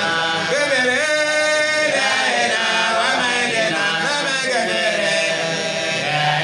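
A man's voice chanting through a microphone and loudspeakers at a Mawlid: a devotional chant of long, drawn-out notes that bend up and down, with no break.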